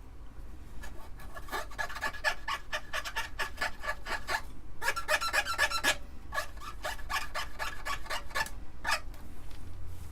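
Quick back-and-forth scrubbing strokes, several a second, rubbing surface rust off the parts of an opened-up Amiga 500. A faster, harder run of strokes comes about five seconds in.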